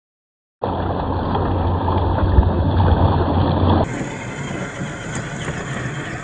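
Electric motor and gear drivetrain of a 1/10-scale RC crawler with a 27T motor running under load as it climbs loose gravel, a steady mechanical sound with a deep low hum. About four seconds in it drops abruptly to a quieter, thinner take of the same running.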